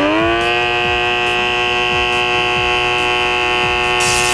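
XN8030 derma suction pore vacuum's pump whining loudly as its nozzle is drawn across the cheek. Its pitch climbs back up at the start and then holds steady. A crackling hiss joins near the end.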